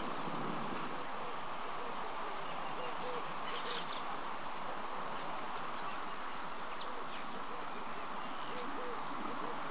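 Steady outdoor hiss with faint, short bird calls repeating through it, low and soft, plus a few brief high chirps.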